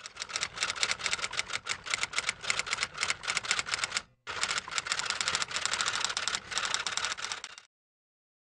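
Typewriter sound effect: rapid key clacks, several a second, with a brief break about four seconds in, as the on-screen text is typed out.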